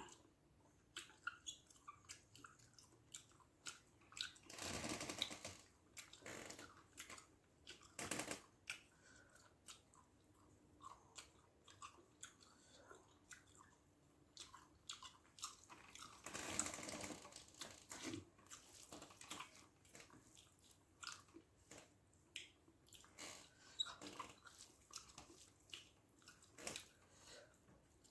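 Faint chewing of a mouthful of rice and fish gravy, with many small wet mouth clicks and smacks. Two longer noises come about five seconds in and again around sixteen seconds.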